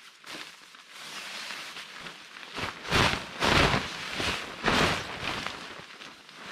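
A green-and-silver camping tarp being unfolded and shaken out, its fabric rustling in several loud swishes between about three and five seconds in.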